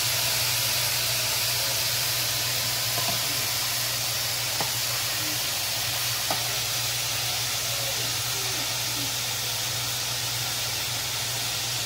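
Floured calamari deep-frying in a skillet of hot oil: a steady sizzle, with a couple of faint clicks partway through.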